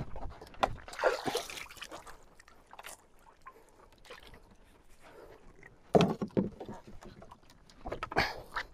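Irregular knocks, thumps and clatter of a fisherman moving about on a wooden outrigger boat's deck and crossbeam, with some water sloshing. A sharp knock about six seconds in is the loudest sound.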